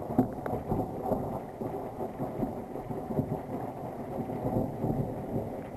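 Thunder rumbling low and continuously, swelling and fading in uneven waves.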